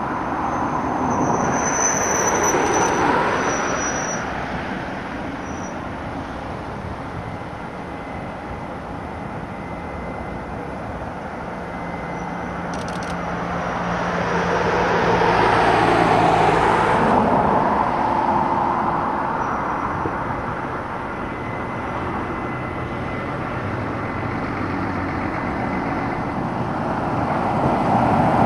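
Jet engines of an Airbus A320 taxiing at idle: a steady rushing roar that swells louder a couple of seconds in, again about halfway through, and near the end, with a faint high whine.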